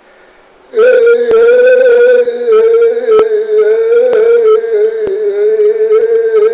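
A man's voice begins about a second in and holds one long, high, slightly wavering note, like a chant. Faint sharp clicks come now and then.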